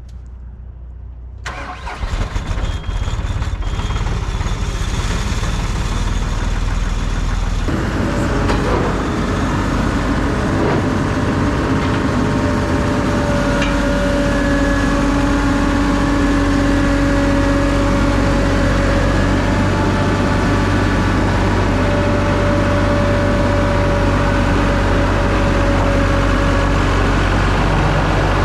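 John Deere skid steer's diesel engine starting about a second and a half in, then running steadily. A steady whine joins it from about eight seconds in.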